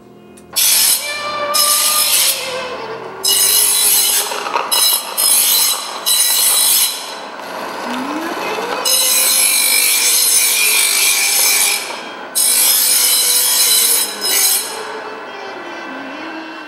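Harsh scraping strokes of a tool working in a workshop, like sawing or filing, in irregular bursts, some brief and some lasting two or three seconds. A faint wavering tone sounds underneath.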